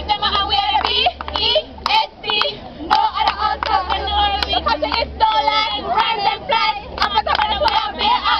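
Cheerleading squad chanting a cheer together, with sharp hand claps sounding throughout.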